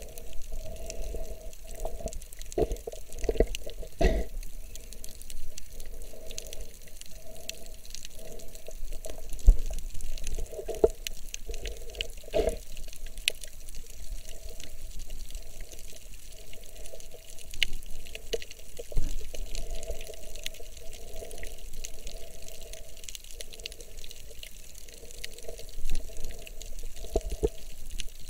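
Muffled underwater sound picked up by a camera held below the surface while snorkeling: an uneven wash of water movement with soft swells and scattered sharp clicks.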